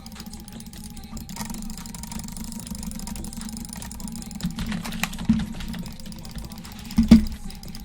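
A run of light clicks and taps over a steady low hum, with two louder knocks about five and seven seconds in.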